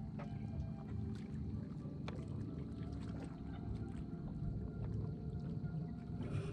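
Steady low rumble of water and wind noise around a fishing kayak, with a few faint scattered clicks.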